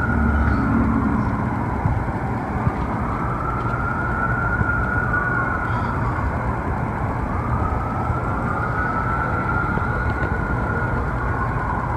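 Emergency vehicle siren sounding a slow wail that rises and falls every few seconds, over a steady rumble of traffic and engine noise.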